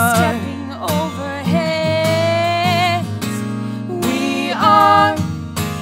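A woman singing a wordless melodic line over acoustic guitar, with one long wavering note held for about a second and a half in the middle.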